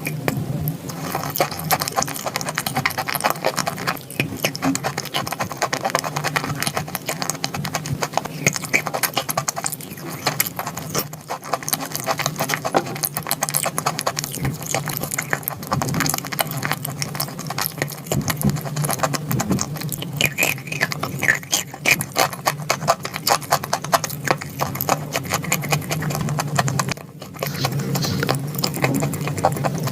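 Close-miked crunching and chewing of dry edible chalk: a dense, continuous stream of crisp crackles, with a brief pause near the end.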